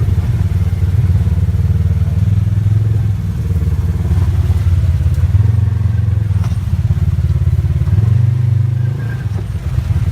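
ATV engine running steadily at low speed, loud and close, easing off slightly twice.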